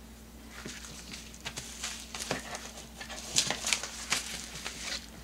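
Paper packaging being handled at a desk: an irregular run of rustles and crinkles from a padded mailer, loudest a little past halfway.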